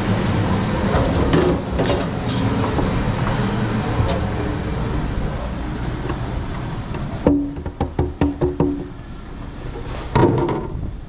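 Steady din of a busy fast-food kitchen with music playing. About two-thirds of the way through the din drops away, and a clear plastic food pan is handled: a quick run of light knocks and clatters, then one louder knock near the end.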